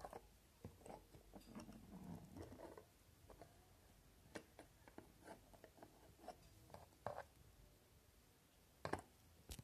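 Faint, scattered clicks and rustles of small plastic Lego pieces being handled and pressed together.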